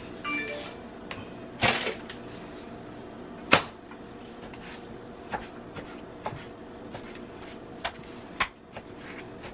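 Knife and raw beef brisket knocking on a wooden cutting board as the meat is trimmed and cut by hand: scattered knocks and thuds, the sharpest about three and a half seconds in, over a steady faint hum.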